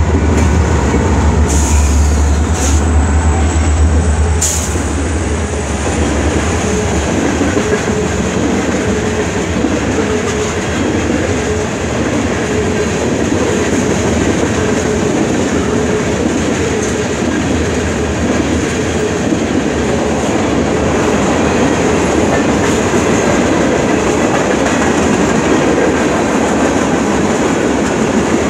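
Norfolk Southern diesel freight locomotives, led by GE C40-9W 9390, passing close with a strong low engine drone that fades after about five seconds, with a few sharp clicks. Then freight cars (tank cars and covered hoppers) roll by with a steady rumble of steel wheels on rail.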